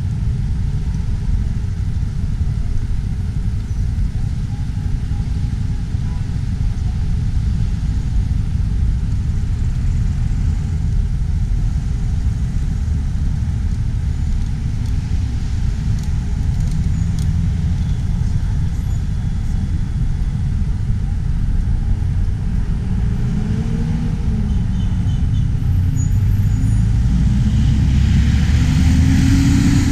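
Road traffic rumbling steadily, with a motor vehicle's engine passing close near the end, its pitch gliding up and down and the noise swelling as it goes by.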